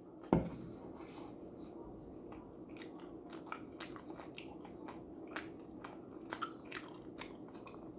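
Someone bites into a Hot Pocket about a third of a second in, then chews, with many small mouth clicks.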